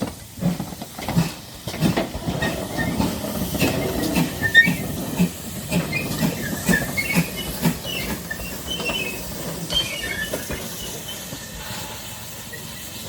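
Heritage train running past with a regular rhythmic beat about twice a second and high squeaks in the middle, fading away toward the end.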